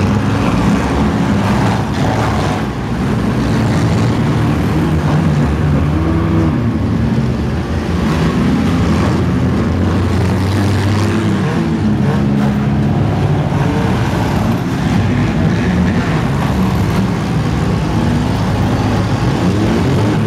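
Demolition derby cars' engines revving hard together, their pitch rising and falling as they accelerate and ram, with occasional crunches of car bodies colliding.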